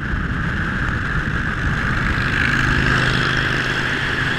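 Motorcycle riding at highway speed: a steady engine drone under loud, rushing wind and road noise.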